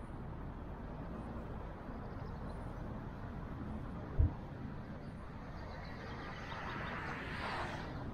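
Car driving, with a steady low rumble of engine and road noise. A single dull thump comes about four seconds in. Near the end a hiss swells and fades.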